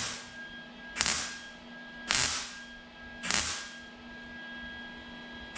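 110-volt MIG welder firing short crackling bursts about a second apart, with a pause of about two seconds near the end. The welds are stitched into pinholes in thin, rust-pitted steel sheet, with the wire speed set high to build up weld over the last one.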